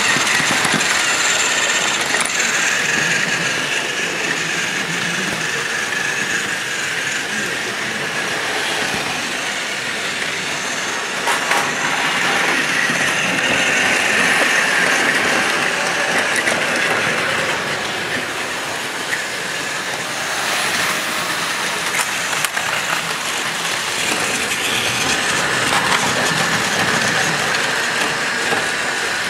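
Plarail battery-powered toy trains running on plastic track: a steady small-motor whine with the clatter of plastic wheels over the track joints.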